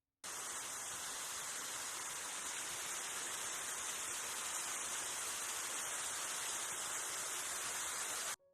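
Waterfall rushing: a steady, even wash of water noise that cuts in abruptly just after the start and cuts off sharply near the end.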